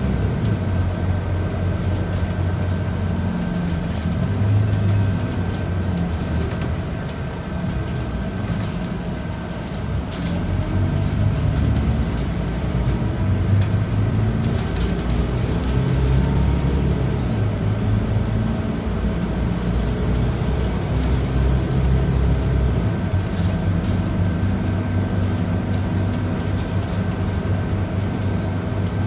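Scania K94UB city bus under way, its Scania DC9 nine-litre six-cylinder diesel running with a shifting low drone and a steady high whine above it, heard from inside the cabin. The sound dips about seven seconds in and builds again about eleven seconds in.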